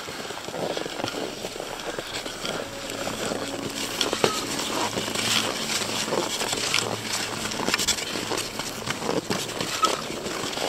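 Touring skis scraping and swishing over snow, with irregular crunchy clicks from ski poles planting and gear knocking.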